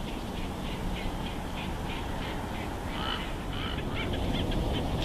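Bird calls: a series of short high notes, about three a second, fading through the first half, then a burst of louder chirps that rise and fall in pitch near the end. A steady low rumble of wind on the microphone runs underneath.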